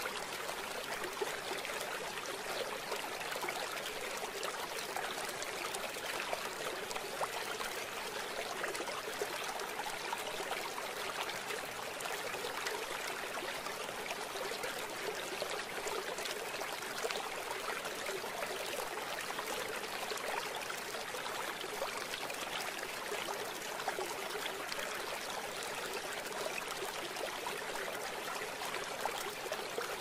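Mountain river flowing over a bed of pebbles and stones: a steady, even rush of water with many fine crackles.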